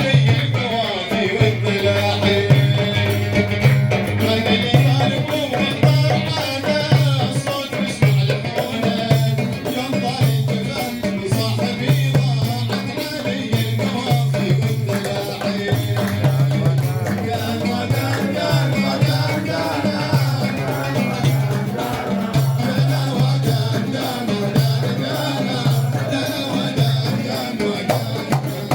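Instrumental break in a live song: a steady, repeating drum rhythm with rattling percussion and melodic instruments.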